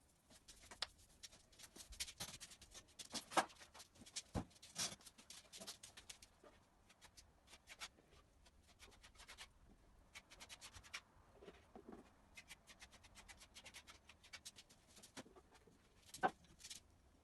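Paint being applied to a plastered wall: quiet, irregular scratchy strokes with small clicks and taps, a louder knock about three seconds in and another near the end.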